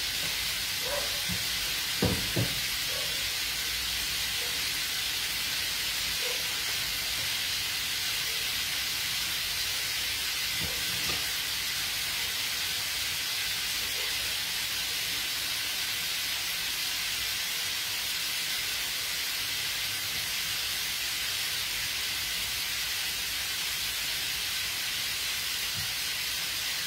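Prawns frying in pans on a gas stove, giving a steady sizzle. There are a couple of short knocks about two seconds in.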